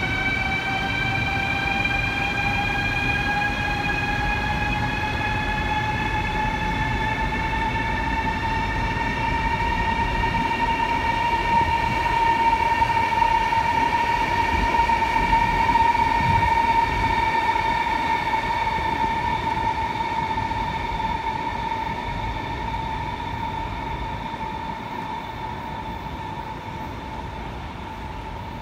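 Chinese high-speed electric train accelerating past a station platform: its traction motors whine over a low rumble from the wheels. The whine rises in pitch over the first several seconds and then holds, and the sound fades near the end as the train moves off.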